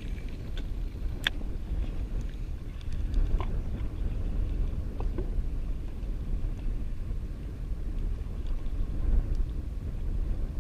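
Wind buffeting the microphone, a steady low rumble, with a few light clicks, the sharpest about a second in.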